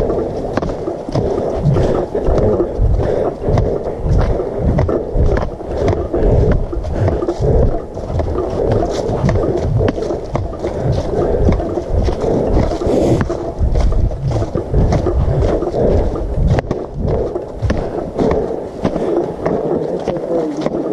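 Footsteps on a gravel trail covered with dry leaves, mixed with heavy rubbing and thumping from the camera swinging with each stride. Repeated low thumps and small crunching clicks run on without a break.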